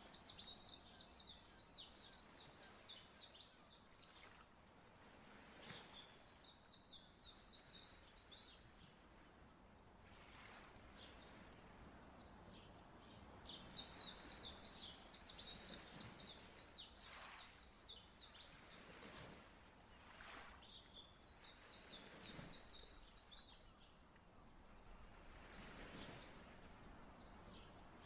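A songbird singing in repeated bouts of rapid, high chirping notes, each bout a few seconds long with pauses between. Underneath is a faint, even wash of sea waves.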